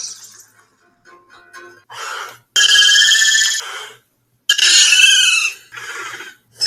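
Shrill dinosaur squawks, repeated: after a few faint clicks, four loud calls follow one after another, each about a second or less, with a pitch that arches up and down.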